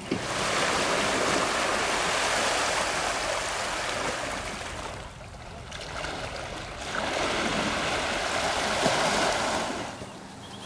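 Sea water washing against the shoreline rocks: a steady rushing wash that drops away for a couple of seconds around the middle, then returns.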